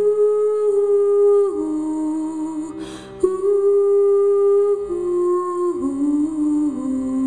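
A woman humming a slow melody in long held notes, with a breath drawn about three seconds in, over a steady low drone.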